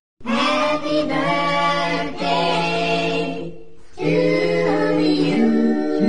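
Background music of sung voices without instruments, with long held notes. It opens after a brief moment of silence and dips briefly just before the last couple of seconds.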